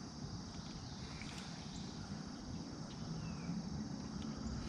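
Outdoor ambience: a steady high-pitched drone of insects over a low rumbling noise, with a few faint ticks.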